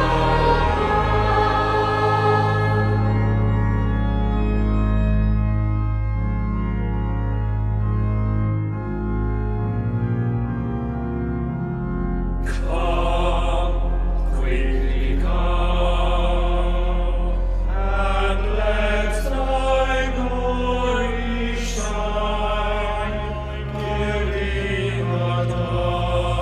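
Choir singing with organ. The full choir ends a phrase about three seconds in, and the organ plays on alone in low held chords; at about twelve seconds the men's voices come back in over the organ.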